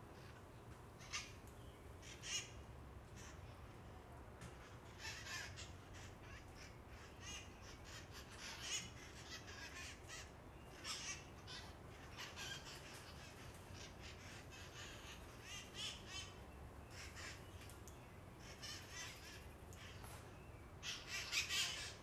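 Wild red-masked parakeets (cherry-headed conures) calling repeatedly in short calls, with a louder cluster of calls near the end.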